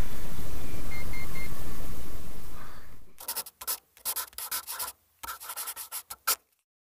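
A steady rushing noise with three short beeps about a second in fades away, and a run of irregular scratching and rubbing sounds follows, stopping abruptly near the end.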